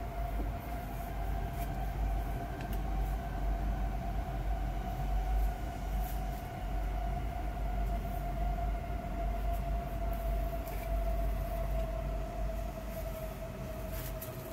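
A steady low rumble with a humming tone that sinks slightly in pitch over the whole stretch. Faint clicks and rustles come from a wooden knife sheath being slid off and bubble wrap being handled.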